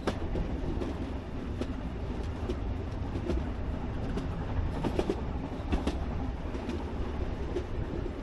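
Narrow-gauge train running along the track: a steady low rumble with irregular sharp clicks of wheels over rail joints.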